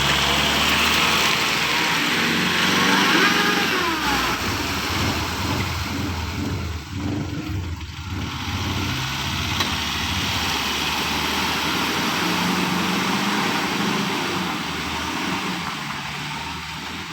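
Engine of a mine-site light vehicle running steadily, its revs rising and falling briefly about three seconds in, with a constant hiss over it.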